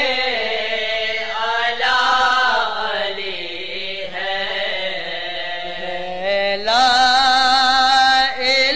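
A voice singing a manqabat, a devotional hymn in praise of Ali, drawing out a single phrase in long held notes that glide and waver in pitch. It grows louder and climbs higher about two-thirds of the way through.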